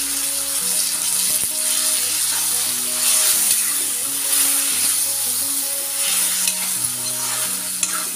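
Leafy greens, potato pieces and garlic sizzling in hot oil in a kadai, with a spatula now and then scraping the pan as they are stirred. A faint background melody plays underneath.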